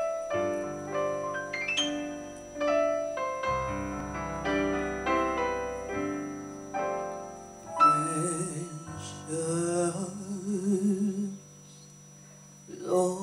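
Korg Triton keyboard playing slow piano chords as an introduction, then a woman starts singing with wide vibrato about eight seconds in, stops briefly, and comes back in near the end.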